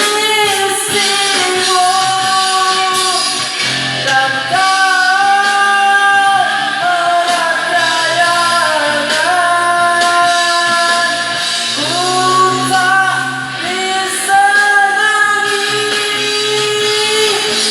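A singer's voice carrying a melody in long held notes over instrumental accompaniment with bass and percussion.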